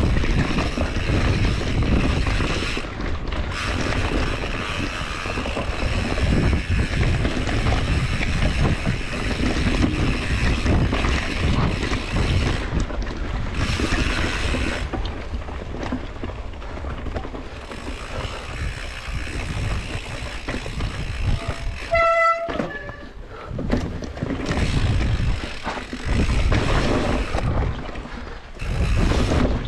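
Wind buffeting the camera microphone and mountain-bike tyres rolling over a dirt trail, with the bike rattling over bumps; the noise rises and falls with the riding. About three-quarters of the way through there is a brief high-pitched squeal.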